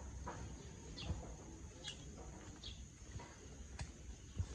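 Small birds chirping: short, falling chirps about once a second, over a faint steady high insect buzz, with a couple of soft low thumps.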